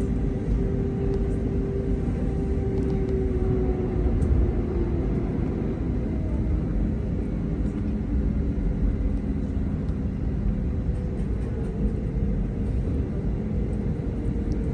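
Steady rumble of an Airbus A320neo heard from inside the passenger cabin, with a steady hum that drifts slightly in pitch.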